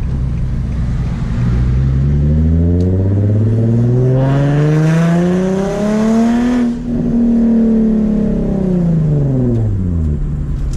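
Nissan V6 sports car with a freshly fitted Tomei exhaust and ISR Y-pipe accelerating: the engine note climbs steadily for about six seconds, breaks briefly, then holds high and falls away as the revs drop.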